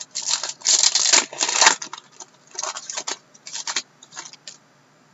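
Hockey trading cards and pack wrapper being handled: a run of rustling and sliding, loudest and longest in the first two seconds, then shorter bursts that die away after about four and a half seconds.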